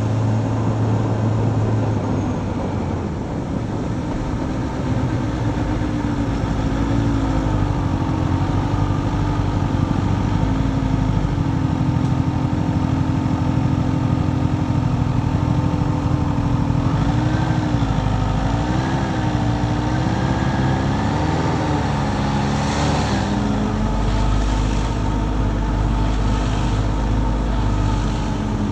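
Motorcycle engine running on the move, its pitch rising and falling repeatedly with throttle and gear changes, over a steady rush of wind and wet-road noise. A brief louder rush comes about four-fifths of the way through.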